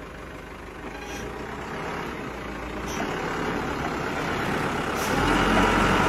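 Small LGMG wheel loader's diesel engine working under load as the machine drives forward up a dirt mound. The engine grows steadily louder, with a heavier low rumble near the end.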